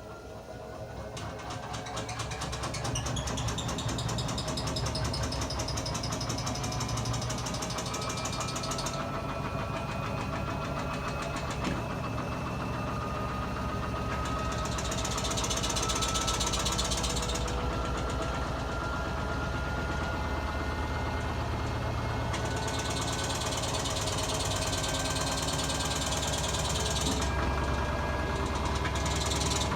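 Washing machine drum accelerating, its motor whine rising steadily in pitch, with repeated stretches of a high scratching noise, which the owner cannot explain.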